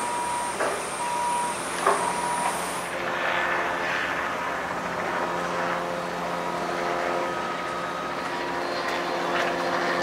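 A construction vehicle's reversing alarm beeping repeatedly, with two short knocks. About three seconds in it gives way to an engine running steadily.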